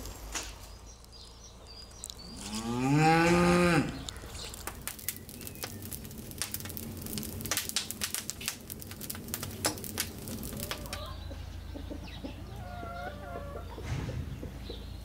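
A cow moos once, loudly, a little over two seconds in. After that comes a wood fire crackling in a clay tandoor, with many sharp pops. A few short bird calls come near the end.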